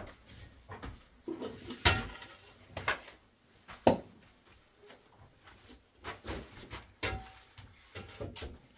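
Footsteps scuffing on a gravelly dirt floor with scattered knocks and clinks, the two loudest about two and four seconds in.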